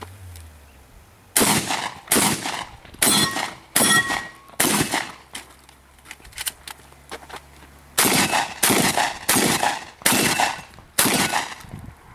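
Shotgun fired in quick succession: five shots about 0.7 s apart, a pause of about three seconds, then five more. A brief metallic ring follows a couple of the early shots.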